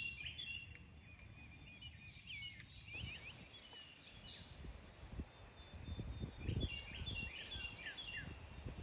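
Wind gusting on the microphone in low rumbling bursts, strongest about two thirds of the way in, with songbirds chirping repeatedly in the background.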